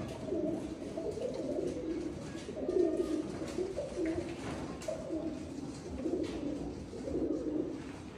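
Several domestic pigeons cooing, one low coo following another without a break.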